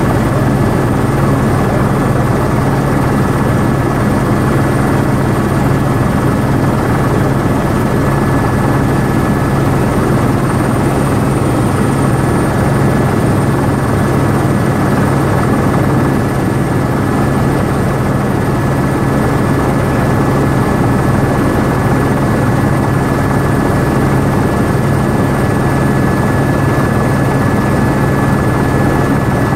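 Helicopter in forward flight heard from inside the cabin: the steady, loud drone of the rotor and engine with a steady high whine over it.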